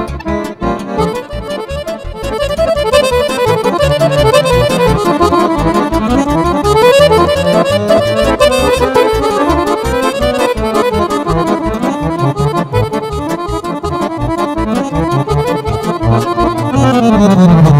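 Accordion playing fast, winding melodic runs in Romanian lăutărească style over a steady pulsing bass accompaniment, ending with a long falling run near the end.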